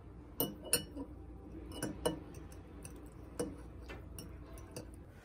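Metal fork clinking and scraping against a ceramic pasta bowl while twirling spaghetti: a string of irregular sharp clinks, the loudest in the first two seconds.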